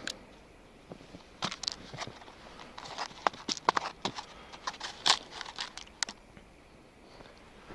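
Footsteps crunching through snow, a run of uneven crunches that stops about six seconds in.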